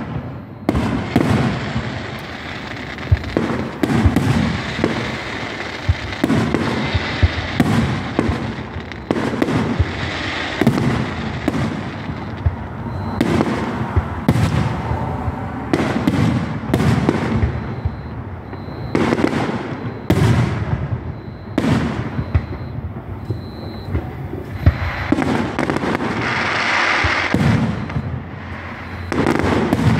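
Aerial fireworks display: shell bursts follow one another about every second, sharp bangs and booms with echo trailing after each. A hissing crackle builds in the last few seconds.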